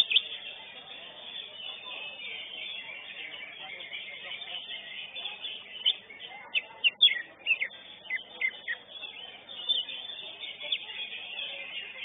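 Cucak hijau (greater green leafbird) singing in a contest cage: quick runs of sharp, high chirps, one right at the start and another about six to nine seconds in, over steady background noise.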